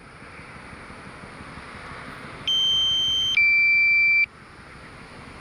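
Low-battery warning tone of the DJI Fly app flying a DJI Mavic Mini: a two-note electronic alert, a higher note then a lower one, each just under a second, sounding once about two and a half seconds in over a steady hiss. It signals that the drone's battery is low and that it is about to return to its home point.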